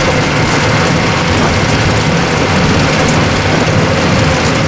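Small narrow-gauge tourist train running steadily along the track, heard from an open carriage: a constant low engine hum over the rumble of wheels on rail.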